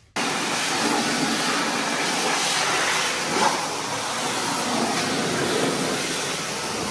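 High-pressure washer lance spraying water into a car's engine bay: a steady, loud hiss of spray that starts suddenly.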